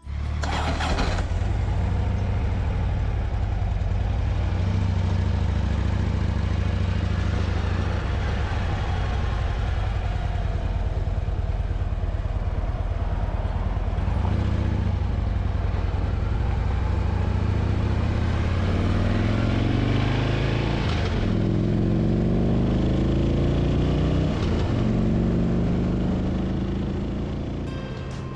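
Motorcycle engine running steadily while riding. In the second half its pitch rises and falls a few times as the speed changes.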